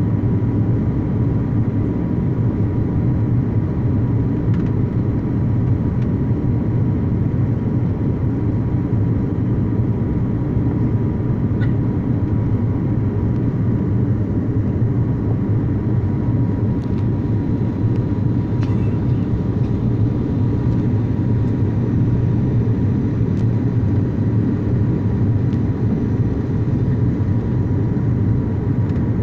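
Steady low rumble of engines and rushing air inside a passenger aircraft cabin during landing, with a faint steady tone above it.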